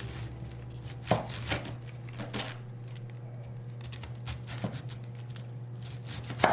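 Knife chopping on a cutting board: a handful of sharp, irregularly spaced cuts over a steady low hum.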